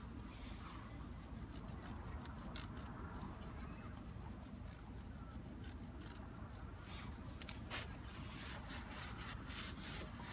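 Brush scrubbing a motorcycle drive chain: a run of short, irregular scratchy strokes as the grime is worked off the links.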